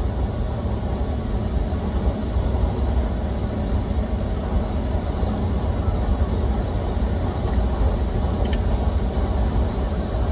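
Steady rush of river water pouring over a weir, deep and even.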